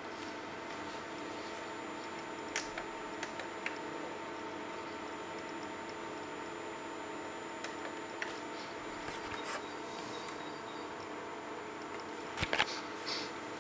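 LCD projector's cooling fan running with a steady hum carrying several fixed tones, with a few light clicks scattered through and a short cluster of louder clicks near the end.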